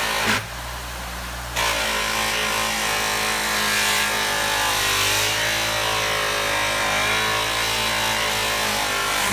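Bench buffer running steadily, its stitched cloth wheel humming, with a dirty metal pinball part pressed against the wheel to buff the dirt off and giving a steady hiss over the hum. The hiss drops away about half a second in as the part comes off the wheel, and returns about a second and a half in.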